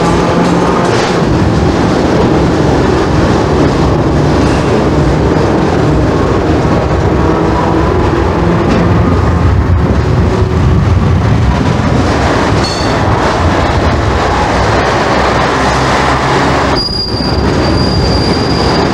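Hong Kong double-decker electric tram running along street track, a steady loud running noise with motor hum, with a brief high wheel squeal about 13 seconds in and a longer steady squeal from about 17 seconds on.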